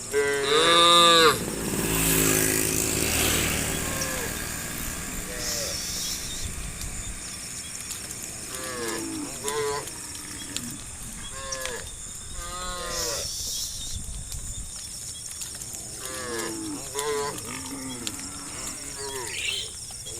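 Cattle mooing. A loud call near the start runs into a long, deep moo, then shorter moos follow every second or two.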